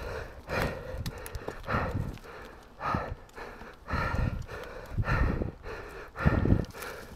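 Mountain bike rolling down a dirt trail: tyre, frame and wind noise swelling and fading about once a second.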